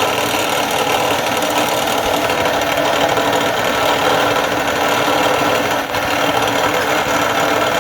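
A metalworking machine, such as a mill or lathe, running steadily as it cuts a metal workpiece down to size, a dense whir with several held tones.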